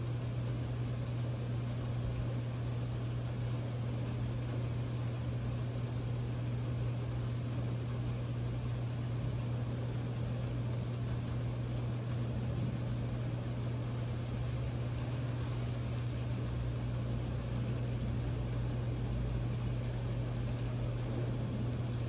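Steady rain falling, as an even hiss, under a loud steady low hum.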